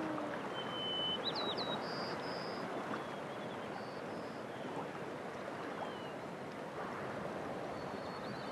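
Steady rushing of a river or stream, with a few short high bird whistles and quick chirps in the first half.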